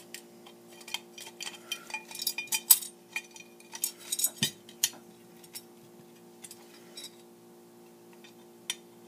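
Small metal pedal parts and hand tools clicking and clinking on a workbench as a guitar effects pedal is taken apart: irregular sharp clicks, a few with a short metallic ring, busiest in the first five seconds and sparse after. A steady electrical hum runs underneath.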